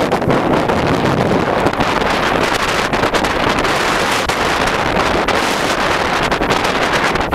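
Hard blizzard wind blowing across the microphone: a loud, steady rush of noise with constant rapid buffeting.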